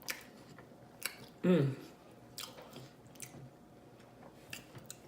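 Close-miked mouth chewing and smacking, with sharp wet lip clicks every second or so. About a second and a half in, a short hummed "mm" falls in pitch.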